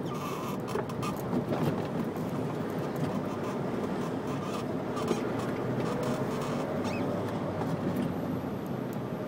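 Steady road and engine noise of a car driving slowly in city traffic, heard from inside the cabin, with faint scattered ticks and small squeaks.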